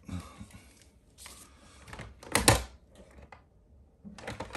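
Handling noise from hard objects: scattered light clicks and knocks, with a sharp double click about two and a half seconds in.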